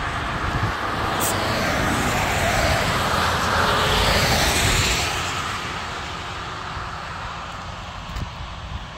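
A car passing on wet road. The tyre hiss and engine swell to a peak about four seconds in, then fade away.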